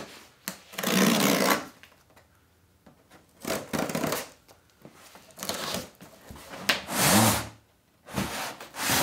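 Packing tape on a cardboard box being slit with a small blade in several short scratchy strokes, with the cardboard flaps pulled open near the end.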